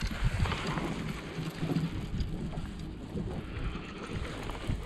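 Wind buffeting the microphone, a gusty low rumble over open water.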